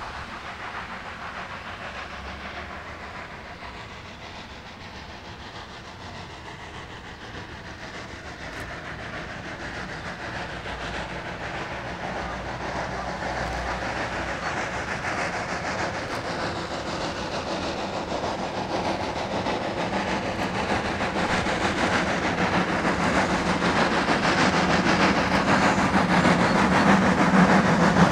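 Narrow-gauge steam locomotive 11sm working steam as it approaches, its exhaust and running gear growing steadily louder.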